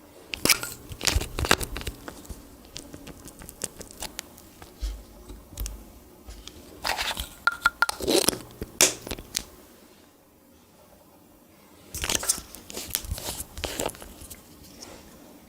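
Clear slime being squeezed and stretched by hand, giving bursts of wet crackling and clicking pops as air pockets burst, with a short lull about two-thirds of the way through.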